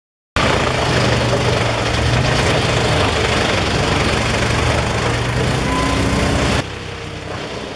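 Large engine-driven wood chipper running loud and steady, its engine hum under a heavy noise of material going through. It cuts in abruptly just after the start and drops to a quieter level near the end.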